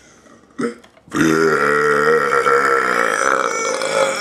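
A man's long, loud deliberate burp, about three seconds long, starting about a second in, its pitch wavering as it goes.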